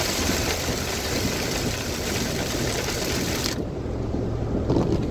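Heavy rain on a car and tyres hissing on the wet highway, heard from inside the moving car over a low road rumble. About three and a half seconds in the hiss cuts off suddenly as the car passes under an overpass, leaving only the low rumble.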